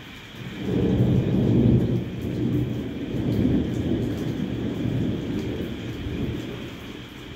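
Thunder rolls in about half a second in, is loudest a second or so later, and dies away slowly, over the steady hiss of heavy rain.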